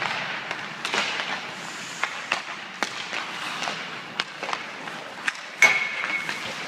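Hockey pucks and sticks clacking in a goalie shooting drill: a string of scattered sharp knocks. The loudest crack comes about five and a half seconds in, followed by a brief ringing tone.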